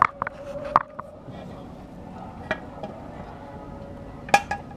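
Sharp metallic clicks and clinks as the oil pan is fitted up onto its alignment pins under a 2010 Yamaha R1's engine. There is a cluster at the start, one about halfway and a louder one near the end.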